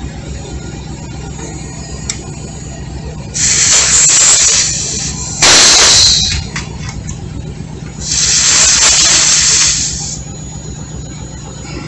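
Compressed air hissing out of a truck tire's valve through an air-compressor hose chuck in three bursts: the second is short and the loudest, the third the longest. Under it the truck's engine idles with a steady low hum.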